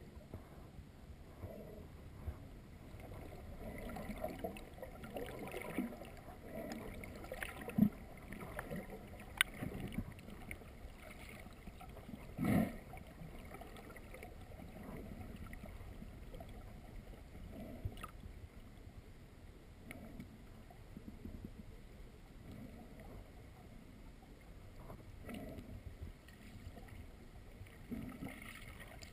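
Water sloshing and gurgling against a camera held just under the surface, with a few short sharp knocks, the loudest about twelve seconds in.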